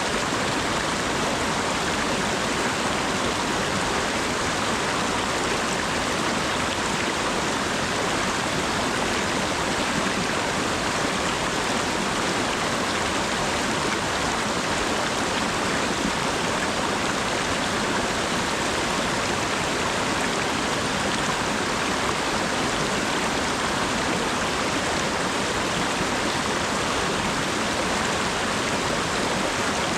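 Steady rainfall, an even hiss that does not change or break.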